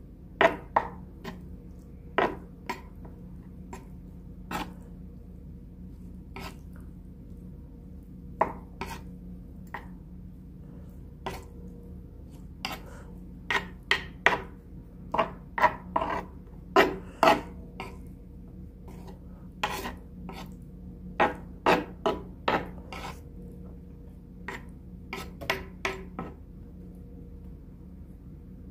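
A spoon clicking and scraping against the dish while sauce is spread over and worked into instant noodles: irregular sharp clicks, some in quick clusters, densest in the middle stretch, over a faint steady hum.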